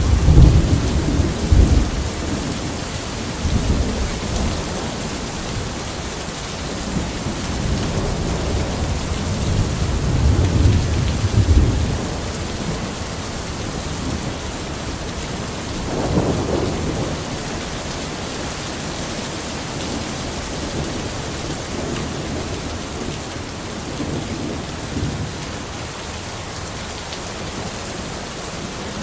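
Steady rain falling in a forest, with thunder rumbling low several times. The loudest peals come at the start and around ten seconds in, with a shorter one later.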